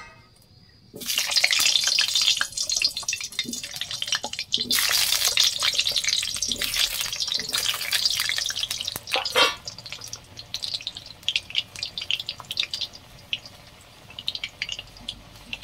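Potato pieces frying in hot mustard oil in a kadai: the oil bursts into loud sizzling and crackling about a second in, flares up again around five seconds in, then settles to a fainter, scattered bubbling sizzle.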